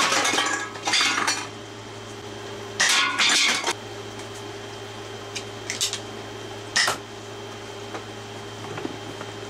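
Aluminium soda cans clattering and tumbling on a toolbox as toy foam-dart blaster shots hit them. There are several separate rattles: a cluster in the first second and another about three seconds in, then a few lighter knocks, including a sharp one near seven seconds, all over a steady low hum.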